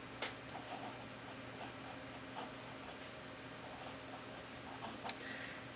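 Handwriting on paper: quiet, scratchy strokes coming in short irregular bursts as symbols are written, over a faint steady low hum.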